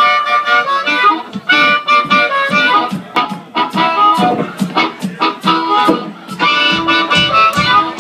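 Blues harmonica played live, cupped in both hands, with long held notes and quick changing runs, over an electric blues band with guitar and bass.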